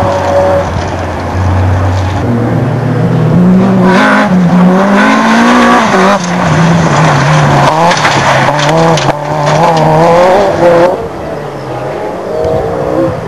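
Rally car engines at high revs as the cars pass at speed on a loose-surface stage. The engine note rises and falls repeatedly, and the loudest pass fades about eleven seconds in.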